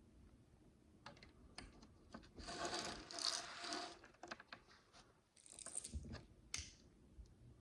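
Micro bricks, miniature plastic building bricks, clicking and rattling as they are handled: scattered single clicks, a louder rattle of loose pieces lasting over a second about two and a half seconds in, and a shorter one near the end.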